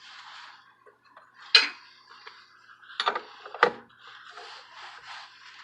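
Metal tools and grinder parts clinking and knocking while a bench grinder's stones are being fitted: three sharper knocks, one about a second and a half in and two close together around three seconds in, with faint scraping between.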